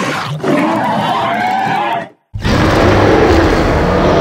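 Two creature roar sound effects. The first is a terror bird's call that wavers in pitch for about two seconds and cuts off. After a short break, a deeper, heavier roar for a large predatory beast starts and carries on.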